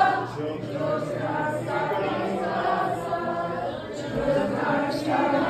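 A crowd of voices chanting together in unison.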